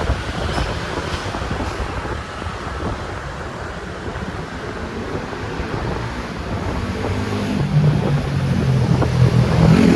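Wind buffeting the microphone over road noise from moving traffic. About seven seconds in, an engine's low hum comes in and grows louder.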